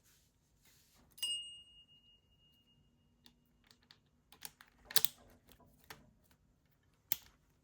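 Metal clicks and clacks of a trigger lock being handled and fitted back together. A click about a second in rings briefly with a high metallic tone, and a quick run of louder clicks comes a few seconds later.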